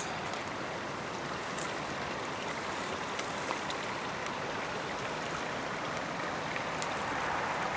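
Steady rushing noise of flowing water, with a few faint clicks over it.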